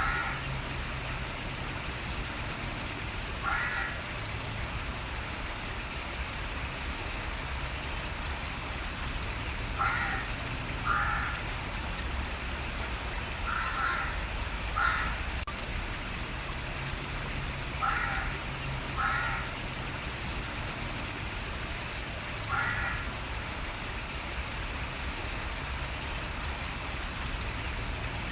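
A bird calling repeatedly over the steady rush of running water. The short calls come every few seconds, often two about a second apart.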